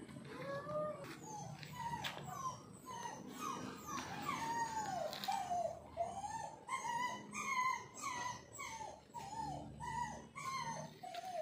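A dog whining and whimpering: a long run of short, high-pitched whines that rise and fall, coming faster, about two a second, in the second half.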